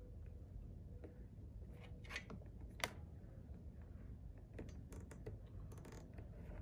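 Scattered small plastic clicks and rustles from washer-fluid tubing and retaining clips being handled and fitted along a wiper arm. One sharp click about three seconds in is the loudest, and a run of lighter clicks follows a couple of seconds later.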